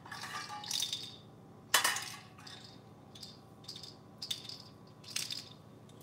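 A wooden foraging toy rattling and knocking against a small stainless steel saucepan as an African grey parrot rummages in the pan with his beak and pulls the toy out. Scraping at first, then a sharp clank about two seconds in, the loudest sound, followed by a few lighter knocks.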